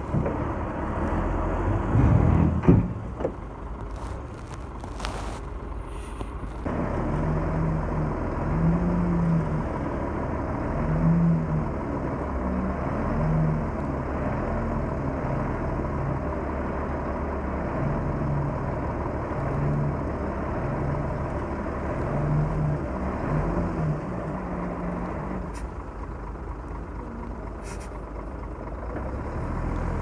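Diesel engine of a Komatsu D31P crawler bulldozer running steadily while working, with a sharp loud knock about two or three seconds in. From about a quarter of the way in, a low note swells and fades every second or two.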